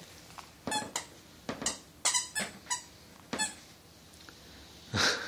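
Squeaky plush dog toy squeaking as a puppy bites and plays with it: about nine short, high-pitched squeaks at an irregular pace, the loudest near the end.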